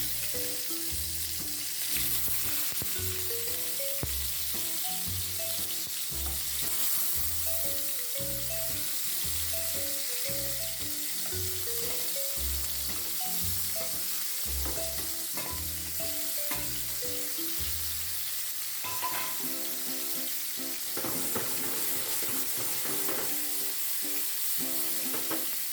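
Steamed bitter gourd pieces sizzling steadily as they fry in hot oil in a kadai, over background music.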